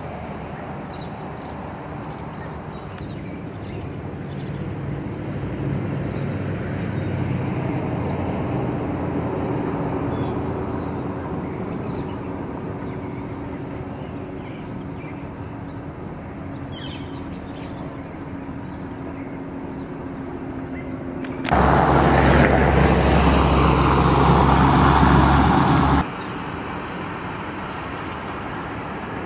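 Outdoor ambient sound of road traffic: vehicle engine noise swells and fades. About 22 seconds in, a much louder steady noise with a low hum starts suddenly and cuts off about four seconds later.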